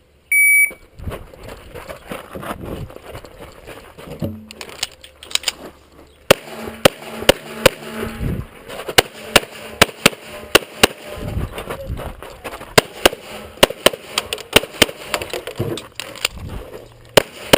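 Electronic shot-timer start beep, then rapid 9mm pistol fire from an EAA/Tanfoglio Witness Elite Match: dozens of shots in quick strings, often two close together, with short gaps between strings as the shooter moves through the stage.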